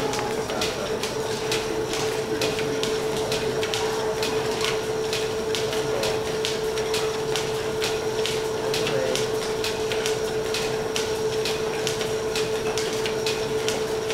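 1917 Brown & Sharpe turret lathe and its flat-belt line-shaft drive running: a steady whine with a regular ticking about two or three times a second.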